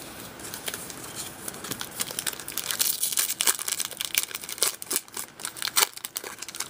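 Foil wrapper of a Topps Strata trading card pack crinkling and crackling in the hands as it is torn open and the cards are pulled out.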